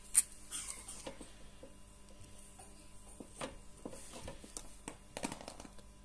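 Small clicks and light rubbing as a screwdriver and a plastic wire terminal connector are handled at a range hood's switch wiring. There is a sharp click just after the start and a cluster of clicks about five seconds in.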